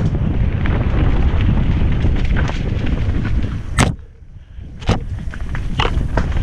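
Wind buffeting the helmet-camera microphone on a fast mountain-bike descent over a dirt singletrack, with sharp clacks and rattles from the bike jolting over bumps. The loudest clack comes just before four seconds in, followed by a brief lull in the wind rumble, then more clacks near the end.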